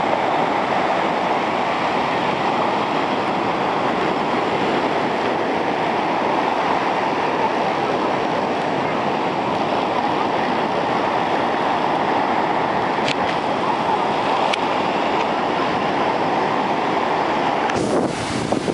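Ocean surf breaking and washing up the beach: a steady rushing noise of waves.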